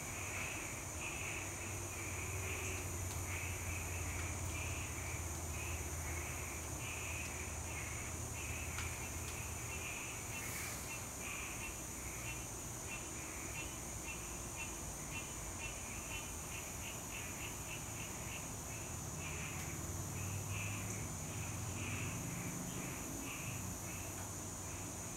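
Outdoor insect chorus: a steady high-pitched drone with a pulsing call repeating several times a second, faster in the middle, over a low steady hum.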